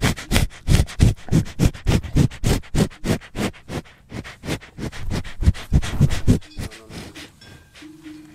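A cow sniffing hard right at the microphone: quick, sharp snuffling breaths about three or four a second, growing weaker near the end.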